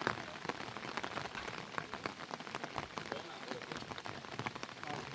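Heavy rain falling steadily, with many sharp individual drop hits over a continuous hiss.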